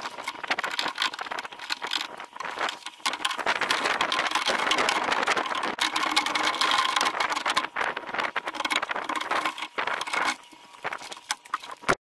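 Rapid clicking, knocking and rattling of hand tools and metal parts as a door lock latch is worked loose and pulled out of a van door.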